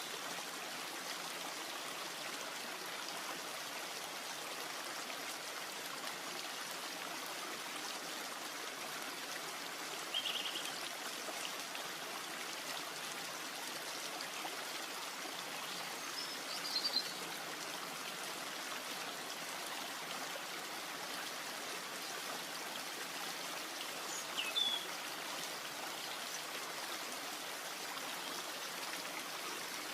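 Steady hiss of rain or running water. A short, high bird chirp comes through three times, at about ten, seventeen and twenty-five seconds in.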